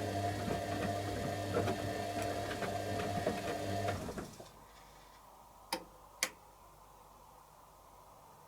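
Candy Aquamatic 100F washing machine's motor turning the drum during the heated wash, a steady hum with small clicks and rattles, stops abruptly about four seconds in. Two sharp clicks follow in the pause.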